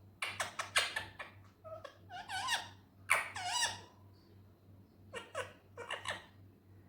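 Indian ringneck parrot calling and chattering: a quick run of sharp, squeaky calls, then two longer calls that waver in pitch, and two short pairs of squeaks near the end.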